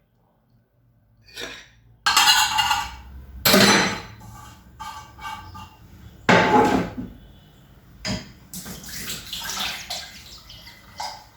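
Water pouring and splashing in several short, loud bursts, with a few clicks of kitchenware between them.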